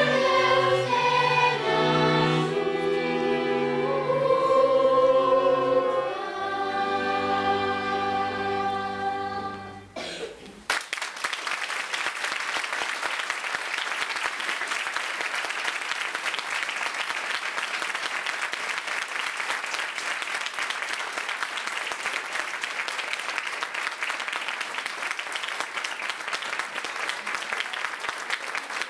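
Children's choir with a string quartet singing the closing phrases of a song, ending on a held final chord under a low cello note about ten seconds in. Applause breaks out a second later and carries on steadily.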